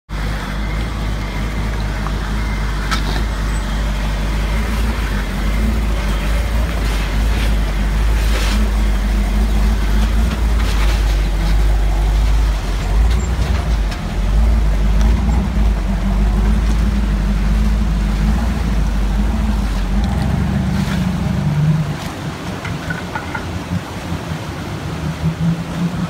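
Vintage Ford Bronco's engine running steadily at low revs close by, a heavy low rumble with a few knocks from the rocks and driveline as it crawls. About twenty seconds in the engine sound drops away, leaving a quieter steady rush of creek water around the wading truck.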